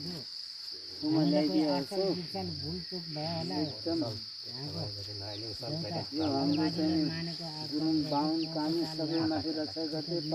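A man's low voice chanting in a continuous wavering line, pausing briefly near the start and again about four seconds in, over a steady high buzz of insects.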